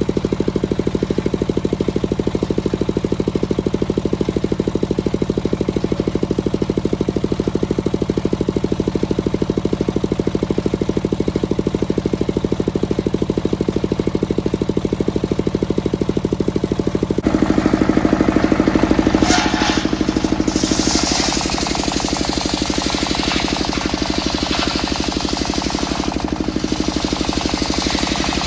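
A single-cylinder diesel engine driving a sawmill's circular saw, running steadily with a fast, even thumping. About 17 seconds in the sound turns louder and brighter, with a burst of scraping noise over the engine for a couple of seconds.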